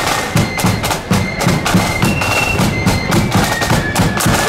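Marching flute band playing as it parades: shrill flute melody over a steady beat of snare and bass drums.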